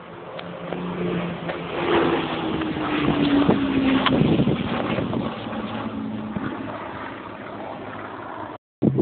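Hawker Hurricane's Rolls-Royce Merlin V12 engine passing low overhead. The engine note swells, drops in pitch as the aircraft goes by, then fades. The sound cuts out for a moment near the end.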